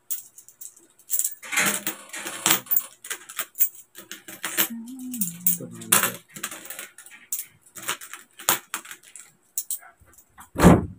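Metal coins clicking and clinking in quick, irregular taps as they are picked off a pile and stacked by hand on a tabletop. A single loud knock comes near the end.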